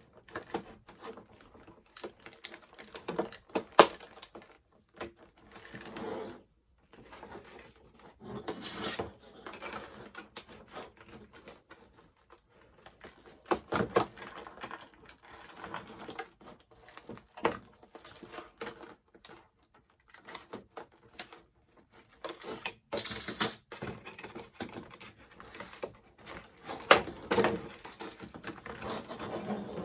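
Plastic toy packaging rustling, crinkling and snapping in irregular clicks as a doll is worked free of its box.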